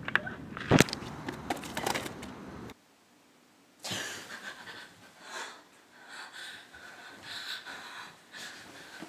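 Quick footsteps and clatter on pavement with one loud thump about a second in, then a cut to near silence. From about four seconds in, a young woman breathes hard in panting gasps, as on waking suddenly from a nightmare.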